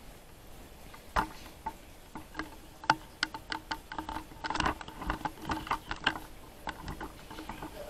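Scattered light clicks and knocks, irregular and denser in the middle, like objects being handled and set down.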